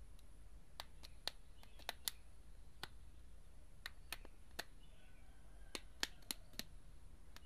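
Sharp plastic clicks, a dozen or so at irregular intervals, as the Vivo Y71 phone's case is pried open by hand and its clips snap loose.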